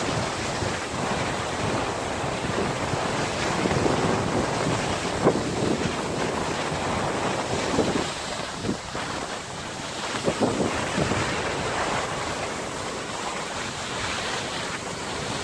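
Steady rushing noise of wind on the microphone while skiing, mixed with the hiss of skis sliding over snow.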